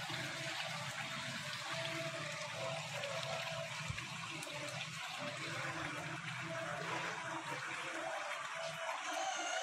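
A steady rushing hiss with no sudden sounds.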